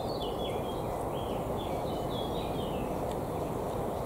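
A bird singing a run of short whistled notes, some flat and some stepping down in pitch. Under it runs a steady low rushing noise, louder than the song.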